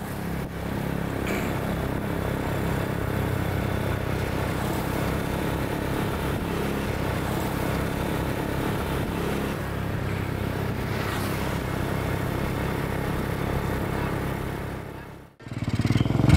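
Honda Supra X motorcycle engine running steadily at cruising speed with two people riding it. The sound drops out briefly near the end, then comes back louder.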